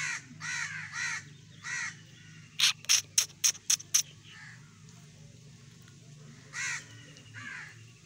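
Short harsh bird calls, four in the first two seconds and two more near the end. Between them comes a quick run of six sharp, loud snaps, about four a second.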